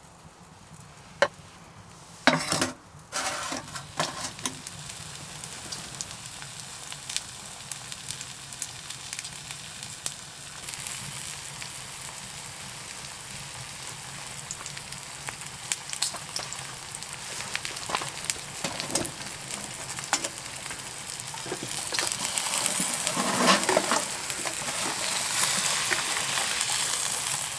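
Steak frying in a pan on a wood stove: a steady sizzle that gets louder about ten seconds in and again near the end. A few sharp knocks of the pan or utensils come in the first few seconds.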